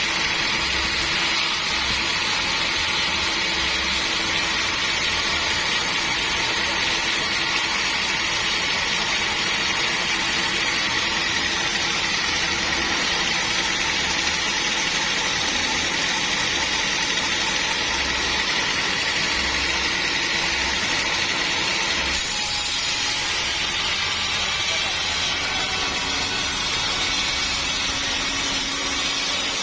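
Sawmill saw running steadily, a continuous machine noise with a high whine over it; its sound shifts about three-quarters of the way through.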